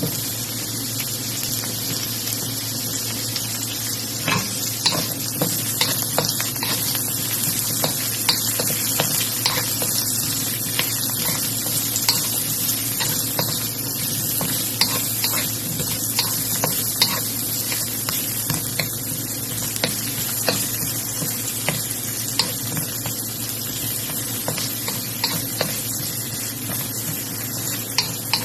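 Chopped onion and garlic sizzling in hot oil in a frying pan, with frequent short clicks and scrapes of a spatula stirring them around the pan.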